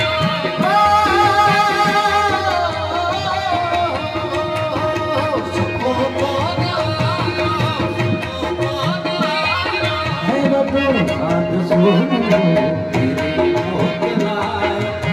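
Harmonium melody over a held drone note, with a dholak hand drum keeping a steady beat; a man's singing voice comes in and out over the instruments.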